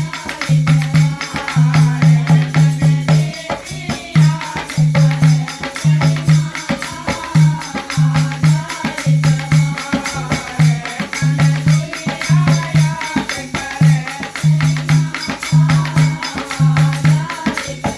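Haryanvi folk devotional music: jingling hand percussion over a pulsing bass beat, with a wavering melody line above.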